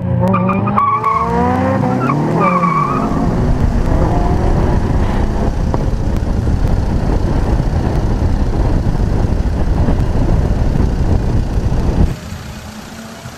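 Off-road vehicle engine revving, its pitch rising and falling several times in the first few seconds, then a loud, rough, unbroken rumble that cuts off abruptly near the end.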